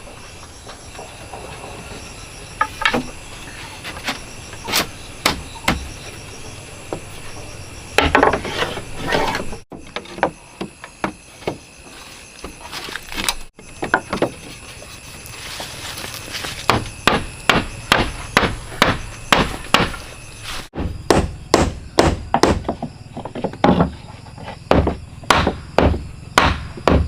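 Repeated hammer blows on wood as wall boards of a small wooden house are nailed up: scattered strikes at first, then a steady run of about two blows a second in the later part, broken off abruptly a few times.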